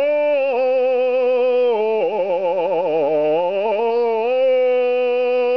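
A man's unaccompanied voice holding one long operatic note with vibrato. About two seconds in, the pitch slides down and wavers more widely, then climbs back to the held note about four seconds in.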